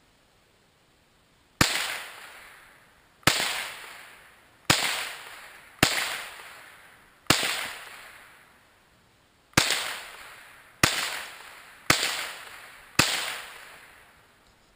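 Nine shots from a scoped Marlin 795 semi-automatic .22 rifle, fired at an uneven pace about one to two seconds apart, each sharp crack trailing off in an echo.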